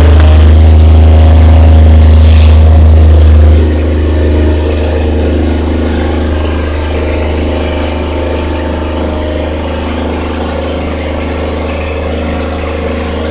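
Engine of a turf spray rig running steadily as it drives across the grass while spraying, with a heavy low rumble that eases back about three and a half seconds in.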